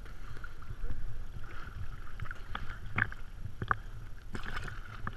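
Sea water lapping and sloshing around a camera held at the waterline, with a steady low rumble and a few short splashes about three to four and a half seconds in.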